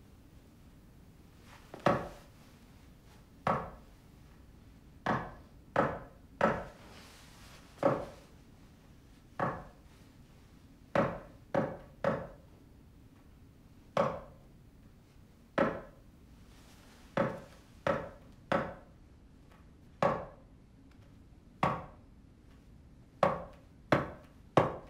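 About twenty single sharp hits over quiet room tone, coming at an uneven pace of roughly one a second and bunching closer together near the end; each dies away quickly.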